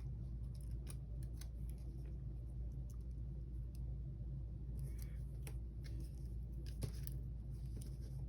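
Scissors snipping sticker paper in a few sparse, faint cuts, over a steady low room hum.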